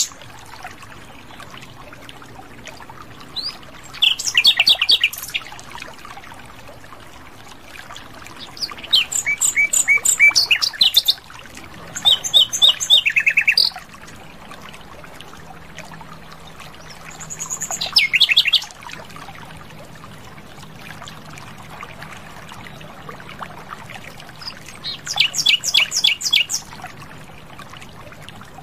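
Nightingale singing: five separate phrases of fast, rapidly repeated high notes, each a second or two long, with pauses of a few seconds between them.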